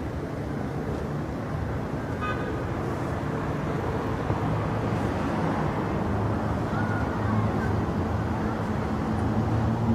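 Steady low rumble of outdoor town ambience, mostly distant road traffic, slowly growing louder.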